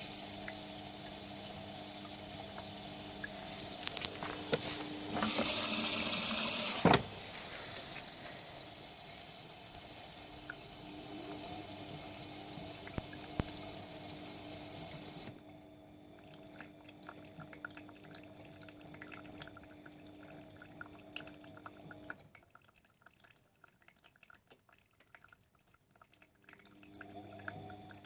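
Whirlpool AWO 9165 front-loading washing machine taking in water: a steady rush of inflowing water with a low hum, briefly louder around six seconds and ending in a sharp click. About fifteen seconds in the inflow stops, leaving faint drips and trickling.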